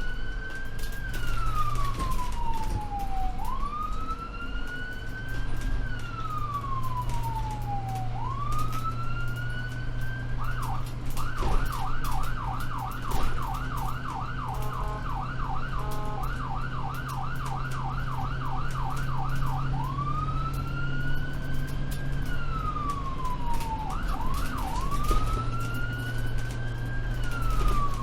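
Ambulance siren on a moving vehicle: a wail that rises quickly and falls slowly every four to five seconds, switching about ten seconds in to a fast yelp of several sweeps a second for some nine seconds, then back to the wail with a brief yelp near the end. A steady engine drone runs underneath.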